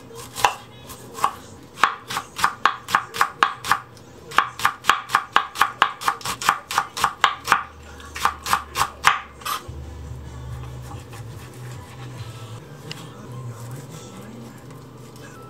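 Chef's knife chopping onion and then green onion on an end-grain wooden cutting board: sharp knife strikes against the wood in quick runs of about four a second, stopping about nine seconds in.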